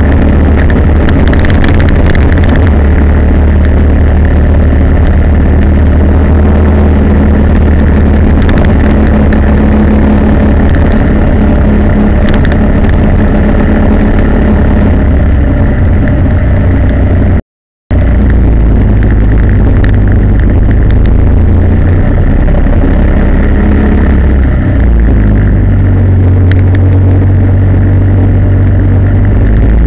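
Vehicle engine running on the move, a steady loud drone with road and wind noise, the engine note shifting near the end. The sound cuts out completely for a moment a little over halfway through.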